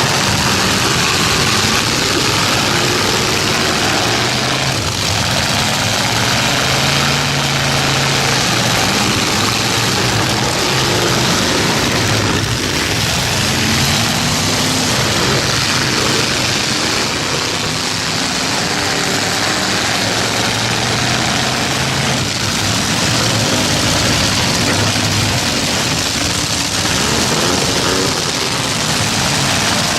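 Several demolition-derby pickup trucks' engines running hard and revving at once, their pitches rising and falling over one another, with a few dull collision thuds.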